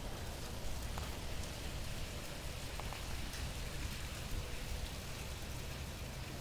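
Steady outdoor background noise from wind buffeting a handheld camera's microphone: a low rumble under an even hiss, with no distinct events.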